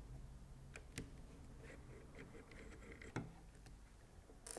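A few faint, sharp clicks of small metal screws and a screwdriver being handled and set down on a tabletop. The clearest click comes about a second in.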